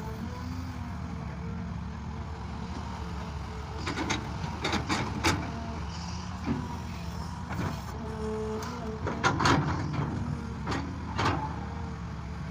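Farm tractor engine running steadily under load, with clusters of sharp knocks and clanks about four seconds in and again around nine to eleven seconds.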